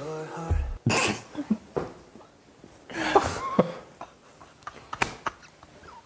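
Men laughing in short, breathy bursts, with quieter gaps between.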